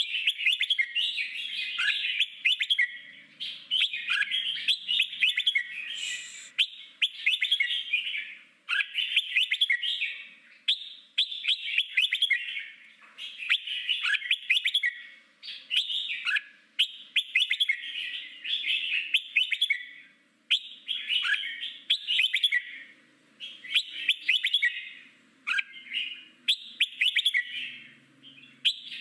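Red-whiskered bulbul singing its wild-type ('forest voice') song: a steady run of short, fast warbled phrases, about one every second or so, separated by brief gaps.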